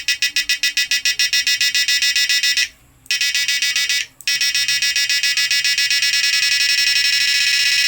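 DIY fish stunner's flip-flop driver module buzzing with a high, rapidly pulsing tone. The pulses quicken until the buzz is nearly continuous, and it cuts out briefly twice, about two and a half and four seconds in. The fast beat comes from its 1 µF 50 V timing capacitor.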